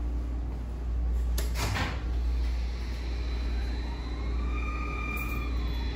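Passenger elevator working behind closed doors: a steady low rumble, a knock about a second and a half in, then a motor whine that rises and falls over about two seconds.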